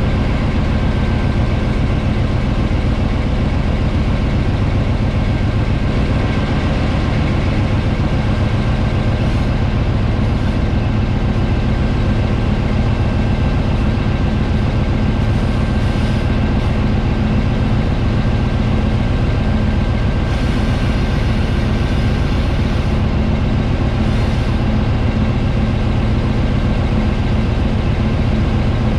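Diesel locomotive engines running steadily under load while hauling a heavy coal train, heard close up from a camera mounted on a locomotive's body. There is a constant low hum with a faint steady high whine, and a short burst of extra hiss about two-thirds of the way through.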